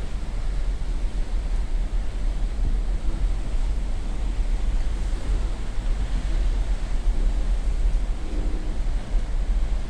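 Wind buffeting the microphone at sea: a heavy, gusting low rumble over a steady rush of noise.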